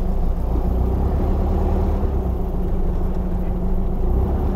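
Engine of a 1971 Volkswagen Beetle fitted with a 2.0-litre engine, running steadily at low speed as the car creeps along, heard from inside the cabin.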